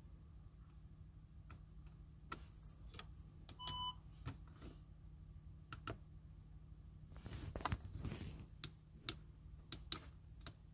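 Faint clicks of car centre-console buttons and the MMI control being pressed, with one short beep about four seconds in as the parking aid switches on, and a brief rustle of handling a little after the middle.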